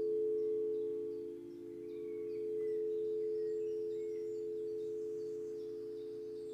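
Singing bowls ringing in a long sustained drone of several steady low tones that swell and ebb in loudness. Faint short high chirps, bird calls, sound above them.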